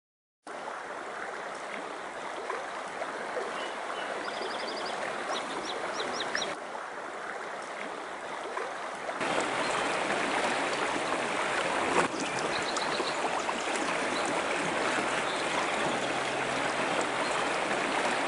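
Fast-flowing river rushing steadily, louder after about nine seconds. A small bird chirps in short quick runs of notes twice.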